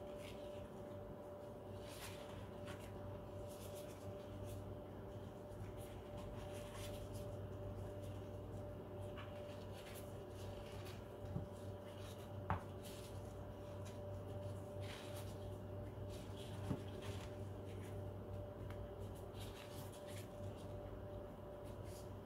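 Faint rustles and soft taps of a plastic-gloved hand pressing apple slices into cake batter in a metal loaf pan, with a few light clicks about halfway through, over a steady low hum.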